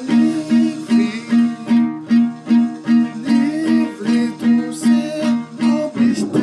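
Instrumental music on a plucked string instrument, played in a steady rhythm of about two and a half strokes a second.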